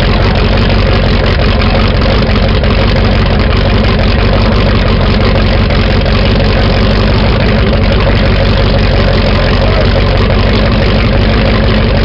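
Mercruiser 454 big-block V8 marine engine running loud and steady on an engine stand, its water-cooled exhaust pipes open and spraying water.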